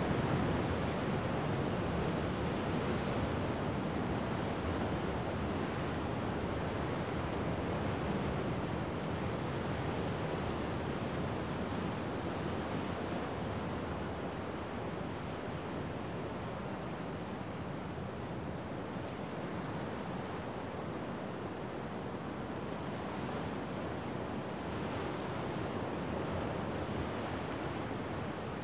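Rough winter surf on the Sea of Japan breaking and washing over a rocky shore: a continuous rush of churning water with no pause between waves, a little louder at the start, easing slightly, and swelling again near the end.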